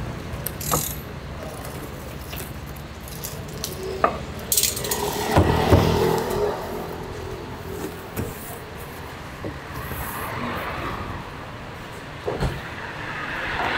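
Clicks, knocks and cardboard rustling as a large cardboard motorcycle shipping crate is unpacked and its top flaps are opened, with a denser burst of handling about halfway through, over a low rumble of street traffic.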